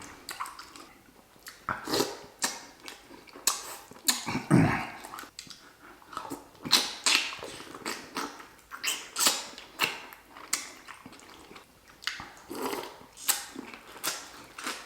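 Close-miked wet chewing and lip smacking of someone eating a seafood boil: a string of short, sharp smacks and squelches, with a brief low-pitched sound about four and a half seconds in.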